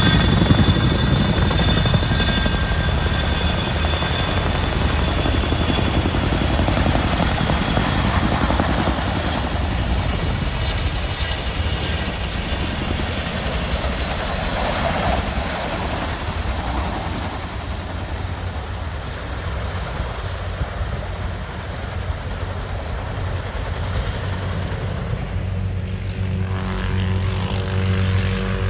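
Boeing CH-47 Chinook tandem-rotor helicopter flying low past, its rotor blades beating in a rapid, loud pulse over the rushing noise of its turbine engines, loudest at the start and easing off as it moves away. Near the end a steadier hum with a few held tones comes in.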